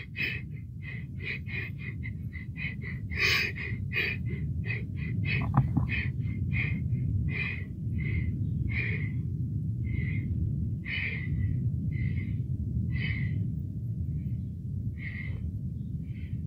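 A person's quick, shaky breathing close to the microphone, about three breaths a second at first, slowing to about one a second, over a steady low rumble.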